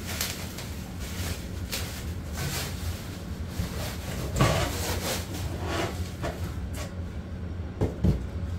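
Bubble wrap and plastic crinkling and rustling in irregular bursts as it is pulled off a steel bench frame, then two sharp knocks near the end as the steel frame bumps against its cardboard box.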